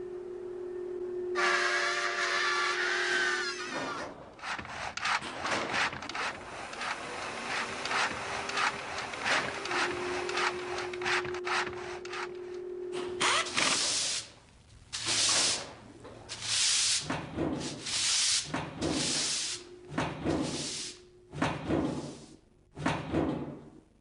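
Scraping strokes, dense and rapid at first, then breaking up about halfway through into separate scrapes roughly once a second. A low steady tone lies beneath them, and a short pitched sound comes about a second and a half in.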